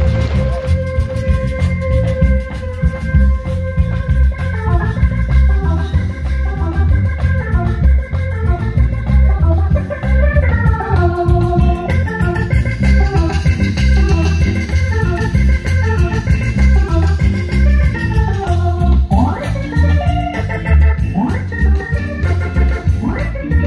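Live band playing an instrumental passage: an organ-voiced keyboard carries a stepping melody over a heavy, steady bass beat.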